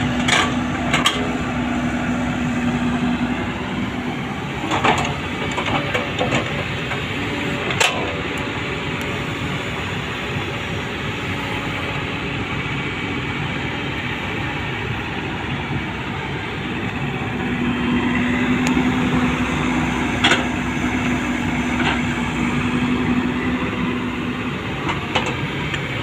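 JCB 3DX backhoe loader's diesel engine running steadily while it works its hydraulic arm, the engine note rising and holding under load for a few seconds at the start and again for several seconds later on. A few sharp knocks of the steel bucket and linkage come through at intervals.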